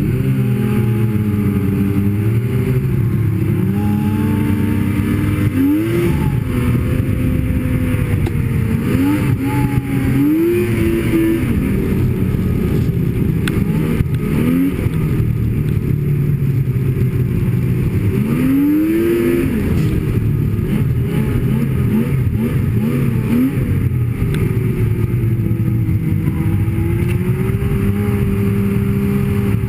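Snowmobile engine running steadily under throttle, its pitch sweeping up several times as the throttle is opened and eased off again.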